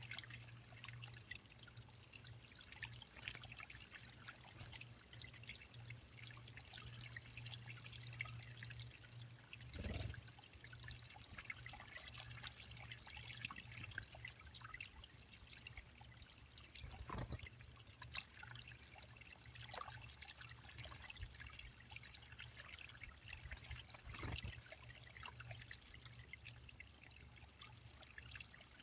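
Faint, steady trickle of water running into a small bird pond. A few soft low thumps and one sharp tick stand out.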